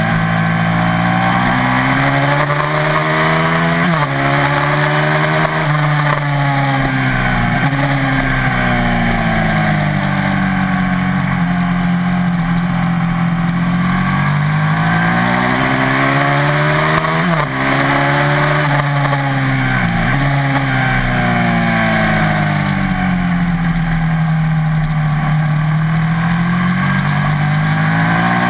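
A 1987 Ducati TT1 racing motorcycle's V-twin engine, heard onboard at racing speed. Its revs climb with quick upshifts several times, then fall away twice as the bike slows for corners, and climb again near the end.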